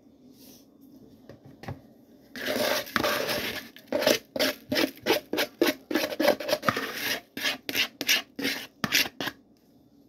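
Leftover brown sugar and barbecue rub sliding out of a plastic bowl with a short hiss. Then a plastic spatula scrapes the bowl in quick strokes, about three a second, working the last of the rub out.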